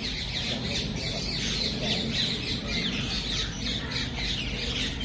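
A flock of birds calling together, with many short, overlapping falling chirps and squawks.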